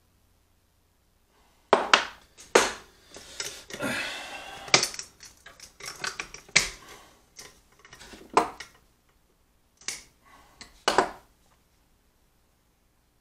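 Clicks, knocks and a brief rustle of small tools and parts being handled on a wooden workbench while getting ready to solder, starting about two seconds in and dying away near the end.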